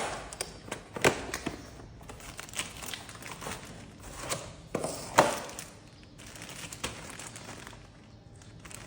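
Packaging of a cabin air filter being opened and handled: plastic and cardboard rustling and crinkling, with scattered taps and knocks, the sharpest about a second in and about five seconds in.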